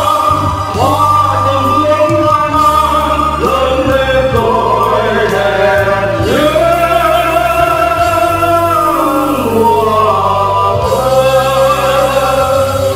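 Male vocal trio singing a Vietnamese patriotic song into microphones over instrumental accompaniment with a steady bass, the voices holding long notes.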